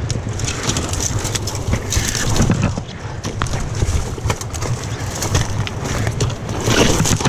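Small mountain creek water rushing steadily, with many short clicks and knocks of rocks or gear being handled at the water's edge.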